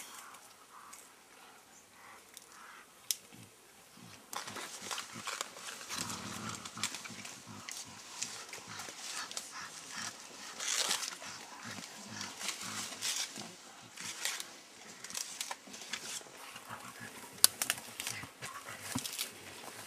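Mountain gorillas feeding in thick foliage: leaves and stems rustling and snapping in an irregular crackle, with occasional gorilla grunts.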